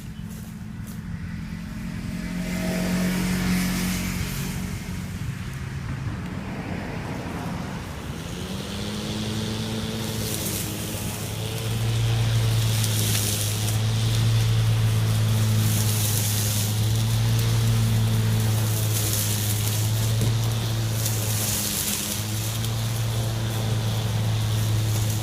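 EGO 56V battery lawn mower's electric motor and blade running with a steady hum. Its pitch rises about 8 seconds in as it spins up, then holds steady and louder, with an on-and-off hiss higher up.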